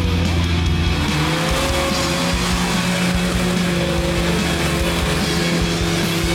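An off-road vehicle's engine running and revving, its pitch rising in a couple of short glides in the first two seconds, with rock music playing along.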